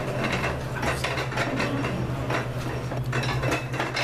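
Spinning fishing reel being cranked to wind line onto its spool: the gears run with a rhythmic clicking, a few clicks a second, over a steady low hum.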